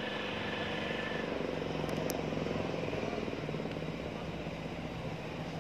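A motor running steadily, with a fast flutter and a steady hum.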